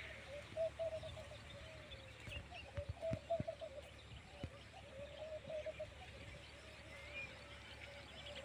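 Low, wavering bird calls repeated over and over, with a few short knocks about three seconds in.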